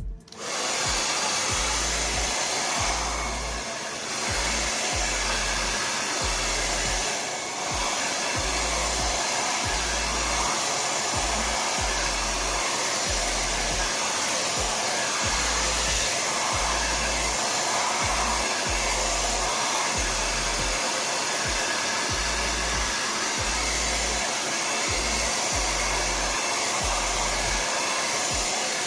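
Handheld hair dryer switching on and blowing steadily, with two brief dips in level, a few seconds in and again about seven seconds in.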